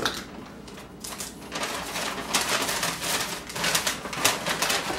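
Paper bag crinkling and rustling as oiled popcorn kernels are poured into it, a run of dry crackles that thickens about a second and a half in.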